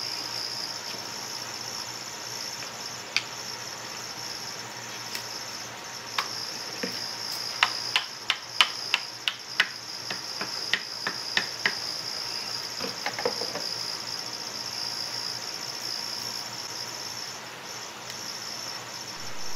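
A mallet tapping a plastic cooling fan onto the rear shaft of an electric motor: a run of about a dozen sharp taps, two or three a second, around the middle, with a few single taps before it. A steady high-pitched whine runs underneath.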